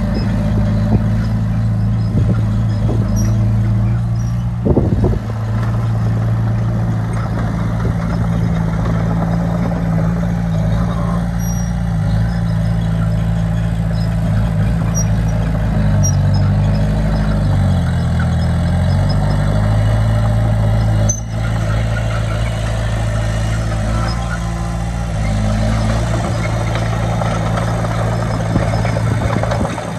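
Heavy earthmoving equipment's diesel engine running, its pitch dipping and then rising again about halfway through, with a couple of short knocks about five seconds in.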